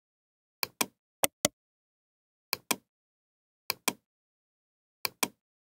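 Computer mouse clicking: five quick pairs of sharp clicks, the two clicks in each pair about a fifth of a second apart.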